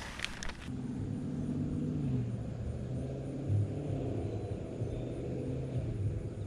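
An engine running steadily, heard as a low hum with slight shifts in pitch. It starts about a second in, after a few light clicks.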